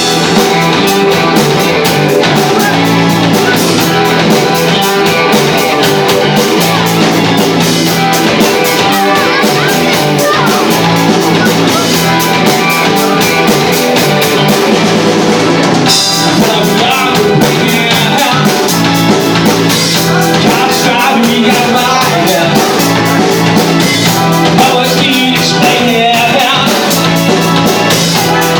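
Live rock band playing a song: drum kit keeping a steady beat under electric guitar, with singing.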